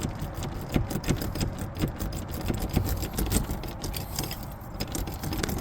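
Lock pick and tension wrench clicking and scraping in a Kwikset knob's pin-tumbler lock as it is picked: many small metallic ticks. A steady low rumble runs underneath.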